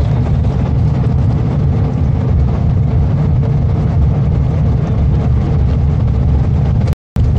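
Steady low rumble of a moving vehicle heard from inside its cabin at road speed: engine and tyre noise with a faint steady hum. The sound cuts out completely for an instant near the end.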